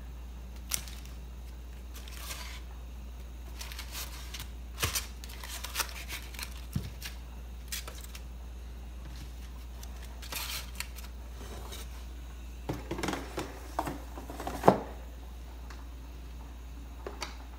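Aluminium-foil packets crinkling and rustling as they are stacked into an air fryer's metal basket, with scattered clicks and knocks. The loudest is a sharp knock near the end as the basket is pushed into the Ninja air fryer. A steady low hum runs underneath.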